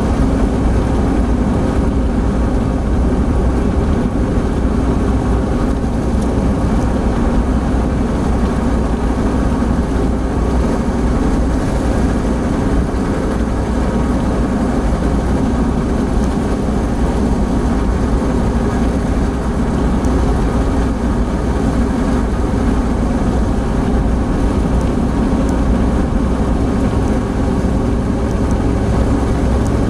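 Opel Blazer's engine running steadily with tyre and wind noise from inside the cabin, cruising at highway speed of about 106 km/h.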